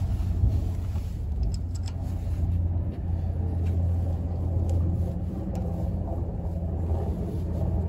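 Steady low mechanical rumble with a faint hum, with a few light clicks as gloved hands handle the front brake caliper.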